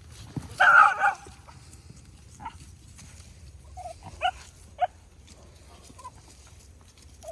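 A dog barks loudly once a little over half a second in, then gives several short, softer yips and whines.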